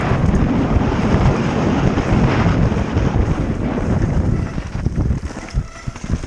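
Wind rushing over the microphone of a mountain bike descending a dirt trail at speed, with the tyres rolling over the dirt; it eases off about four and a half seconds in.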